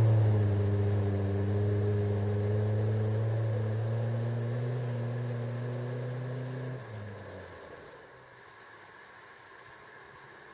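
1996 Toyota Camry TRD wagon's four-cylinder through a home-made straight-pipe exhaust that keeps the cat and resonator: a steady, deep drone as the car pulls away, fading with distance and dying out about seven seconds in.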